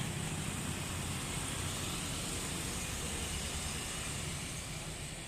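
Boeing 777-300ER's GE90 jet engines at takeoff power: a steady deep rumble with a high hiss, slowly fading.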